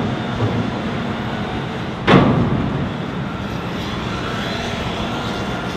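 Heavy cargo-handling machinery running steadily at a container terminal, with one loud bang about two seconds in.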